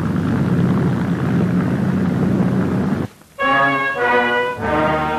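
Steady, low noise of tank engines and running tracks, which cuts off suddenly about three seconds in. Music of long held chords follows.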